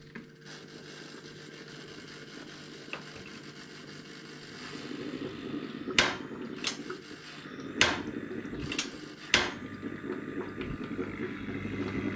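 Single-burner gas stove fed with biogas: a steady hiss of gas flowing, then the knob's igniter clicks sharply five times in about three seconds. Near the end a lower steady burner sound takes over as the flame lights.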